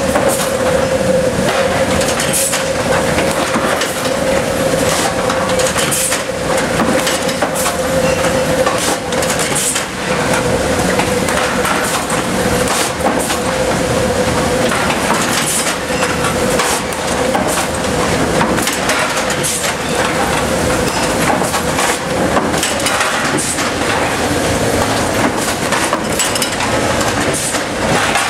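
Forging presses and dies striking and shaping red-hot steel barn cleaner chain links, with repeated metallic impacts over a loud, steady machine hum in the forge shop.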